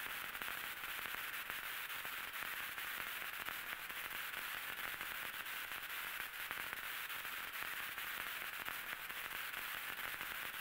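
Faint, steady crackling static: an even hiss strongest in the middle-high range, peppered with many fine clicks.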